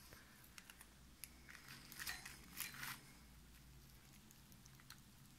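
Faint handling noises: a few light clicks of the steel linear rail and its sliding block, with short crinkles of bubble wrap about two to three seconds in.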